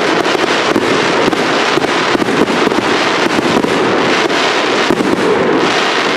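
Cake fireworks firing in a dense, rapid crackle of many small bangs and pops: the closing volley of the display.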